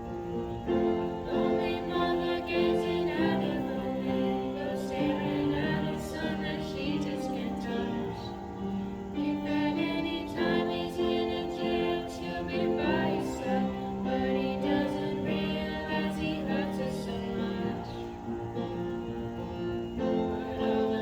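Music with singing over sustained chords.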